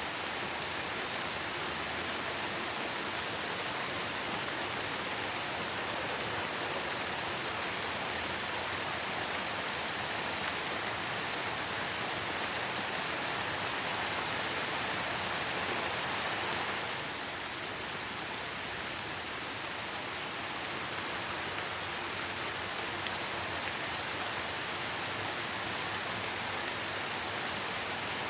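Steady rain falling, a dense even hiss of drops with no let-up, a little quieter from about two-thirds of the way through.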